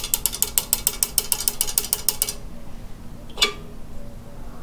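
A rapid, even run of ratchet-like mechanical clicks, about seven a second, which stops a little over two seconds in, followed by a single sharp click.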